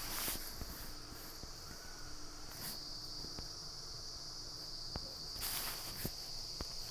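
Faint steady high-pitched drone of a background insect chorus, like crickets, with a few soft clicks and rustles.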